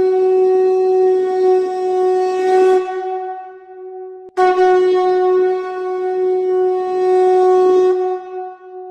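Conch shell (shankha) blown in long, steady blasts on one pitch. The first blast weakens about three seconds in and breaks off just past four seconds; a second blast then starts and holds. It is the Bengali evening conch, blown as the dusk lamp is lit.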